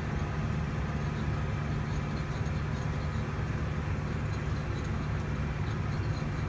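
Tractor engine running steadily under load while driving a New Holland round baler through its PTO shaft, the baler's pickup gathering hay, with faint light ticking from the machinery.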